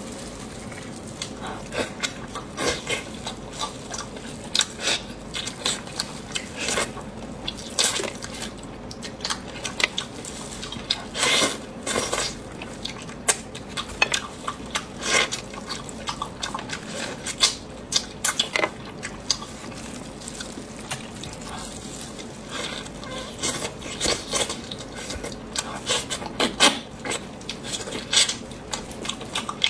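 Eating utensils clinking and tapping against dishes, in many short, irregular clicks, during a meal.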